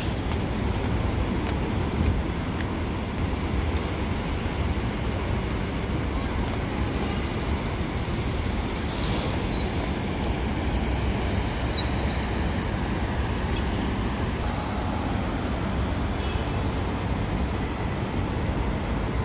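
Steady road traffic noise from cars on the busy road below, with wind rumbling on the phone's microphone.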